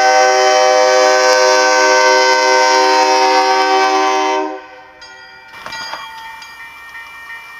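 Locomotive air horn sounding one long, loud multi-note chord that cuts off about four and a half seconds in, followed by quieter train noise.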